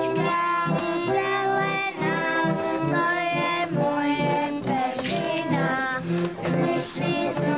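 Live music from a small ensemble, a keyboard instrument and a bowed string instrument, playing a tune with sustained, changing notes.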